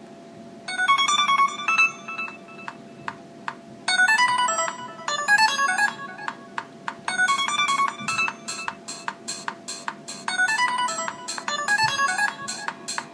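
Alcatel OT-708 One Touch Mini mobile phone playing one of its built-in ringtones through its speaker. It is a bright electronic melody with sharp beats, its phrase played four times over. It starts about a second in and stops right at the end.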